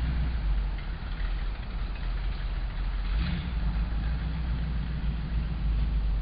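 A 1932 Ford roadster pickup's engine running steadily, with a low, even sound.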